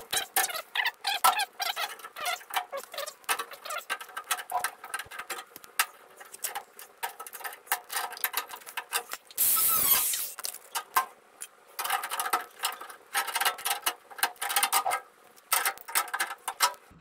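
Sheet metal of a 1961 VW Beetle's rear body shell being bent and worked by hand: a dense run of squeaks and clicks, with one longer, louder scrape about ten seconds in.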